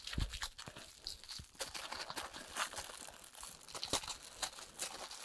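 Plastic packaging bags crinkling as they are handled, with scattered small clicks and taps.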